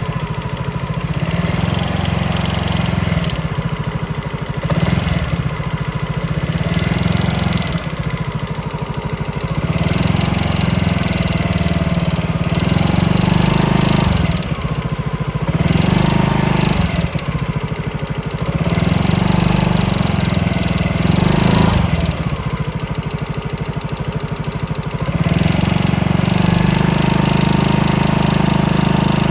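SYM DRG scooter engine running while the throttle is blipped again and again, the revs rising and falling every two to three seconds, then held steadier and louder for the last few seconds. The owner reports an abnormal noise from the engine as it runs, at only 500-odd km.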